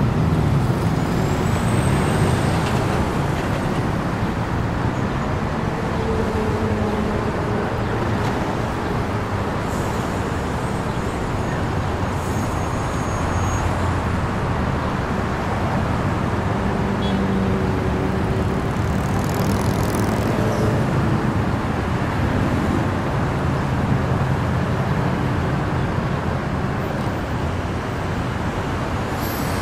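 Downtown city street ambience: continuous road traffic, with vehicle engines and tyres making a dense, steady hum.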